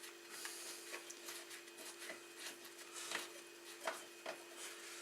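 Faint, scattered clicks and scrapes of two 12 mm wrenches working a motorcycle exhaust bolt, one wrench holding the nut while the other turns the bolt, over a steady low hum.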